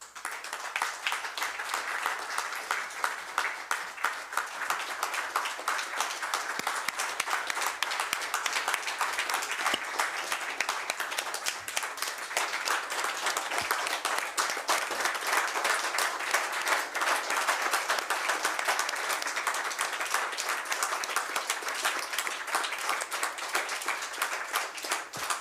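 A small group of about twenty people applauding: dense, steady hand-clapping that keeps going without a break.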